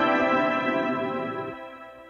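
Background music of held synth-like chords over a low beat; the beat drops out partway through and the music fades away.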